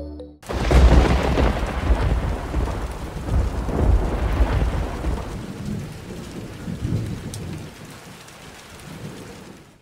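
Thunder rumbling over rain. It starts suddenly about half a second in, the deep rumble is loudest in the first few seconds and slowly dies away, and it cuts off abruptly at the end.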